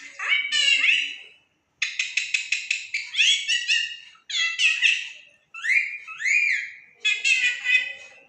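A pet parrot calling in a series of loud whistled and chattering bursts, some notes gliding up and down. About two seconds in there is a quick run of repeated notes.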